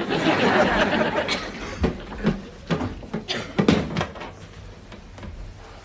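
A short rush of noise, then a series of sharp knocks and bumps over the next few seconds.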